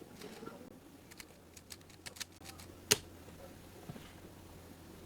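Rubik's cube being turned by hand: irregular quick plastic clicks as the layers are twisted, with one much sharper click about three seconds in.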